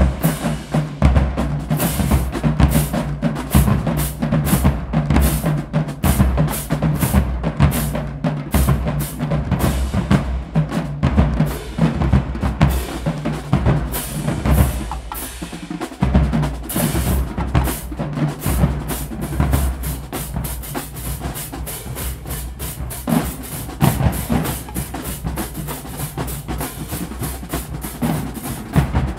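College marching band drumline playing a fast cadence: rapid snare drum strokes over heavy marching bass drum hits, with crash cymbals. The playing is loud and dense, with a brief break about halfway.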